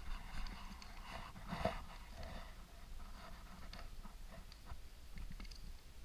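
Pages of a hardback Bible being turned by hand: paper rustling and swishing, loudest about a second and a half in, then lighter rustles and small taps as the hand settles on a map page.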